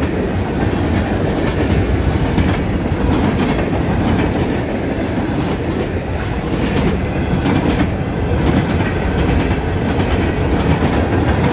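CSX freight train's cars rolling past close by: a steady rumble of steel wheels on the rails, with repeated clickety-clack as the wheels pass.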